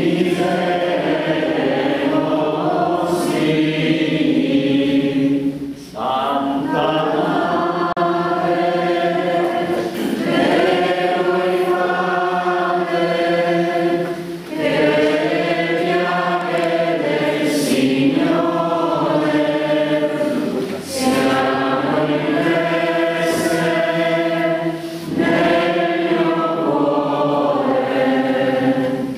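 A group of voices singing a hymn together, in phrases of a few seconds each with short breaths between, over a steady low tone.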